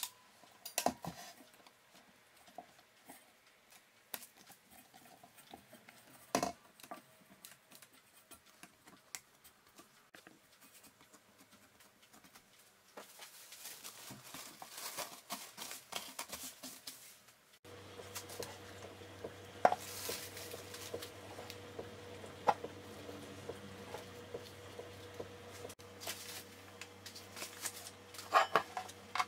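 Faint handling of a stainless steel mixing bowl: scattered clinks and knocks, and about halfway through a few seconds of plastic cling film crinkling as it is stretched over the bowl of dough. Then a steady low hum sets in, with a few knocks as the bowl is moved on a table.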